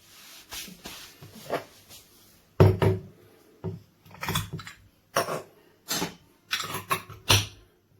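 A series of about ten clattering knocks of hard objects being handled and set down, loudest about two and a half seconds in and again near the end.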